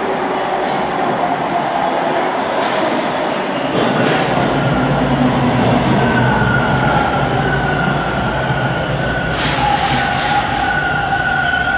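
A TTC T1 subway train pulls into the station alongside the platform, slowing as it comes in, with the steady loud noise of steel wheels on rail. About four seconds in a low hum joins as the cars draw level, and from about six seconds a high steady whine rises over it.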